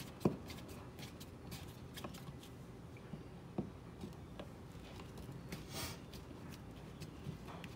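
Faint clicks and scrapes of a multi-bit screwdriver turning out the mounting screws of a wall receptacle, the sharpest click just after the start and another about three and a half seconds in, with a brief rustle near six seconds.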